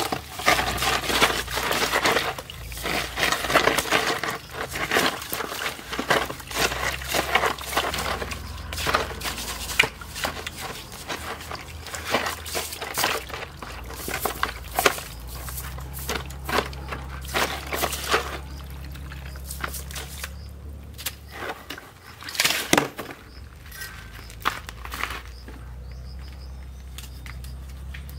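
Steel-wool scrubber rasping over a snake's scaly skin in a basin of soapy water, with quick repeated scrubbing strokes and splashing; the scrubbing thins out after about eighteen seconds, leaving a few scattered handling sounds.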